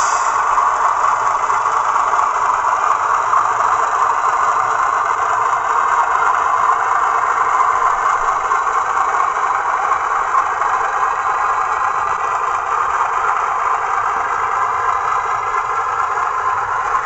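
DCC sound decoder in a model Class 31 diesel locomotive playing a steady diesel engine sound through its small onboard speaker as the model runs along the track.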